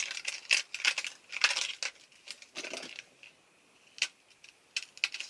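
Makeup products in their packaging being handled: a run of rustling and clattering for the first few seconds, then a few sharp clicks near the end.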